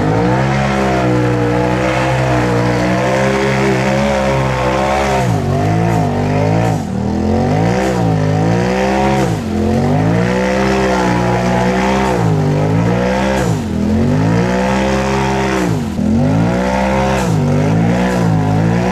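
Side-by-side UTV engine revving hard over and over while it churns through deep mud, its pitch rising and falling every second or two.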